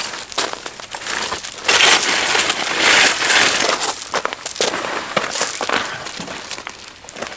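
Folding camping chair being unpacked and set up: crinkling and rustling handling noise, broken by irregular clicks and knocks, loudest about two to four seconds in.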